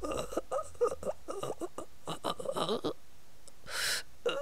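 A voice making wordless sounds: a run of short cries that rise and fall in pitch, with a breathy rush of air a little before four seconds in.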